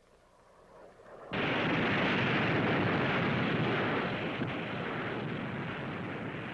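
Explosion sound on an old film soundtrack, standing for a nuclear bomb's air burst. It starts suddenly about a second in and goes on as a long, loud rush of noise that slowly fades.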